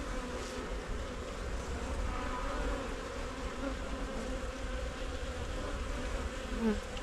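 Honey bees buzzing steadily around an open hive, with single bees flying close past and their hum rising and falling in pitch.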